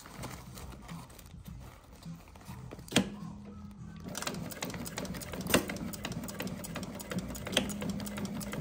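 Sewing machine stitching: a sharp click about three seconds in, then the machine runs steadily with a rapid ticking of the needle.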